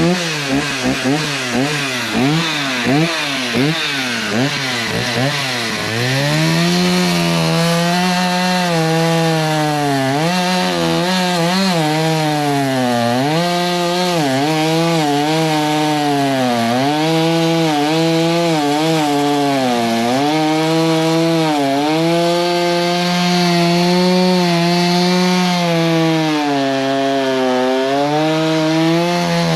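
Gas chainsaw revving in quick repeated blips for about the first six seconds, then held at high throttle as it cuts through an oak log, its pitch dipping now and then as the chain loads up in the wood.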